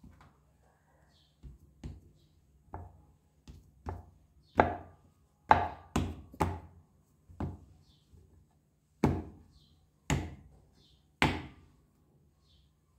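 Hands slapping and patting a block of damp multani mitti (fuller's earth) clay on a hard board to shape it into a bar: about a dozen dull thuds at uneven intervals, the loudest in the middle.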